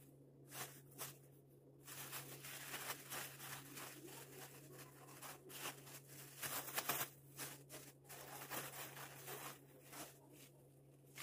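Thin plastic bags rustling and crinkling in irregular bursts as flatbread is handled and packed into them, over a steady low hum.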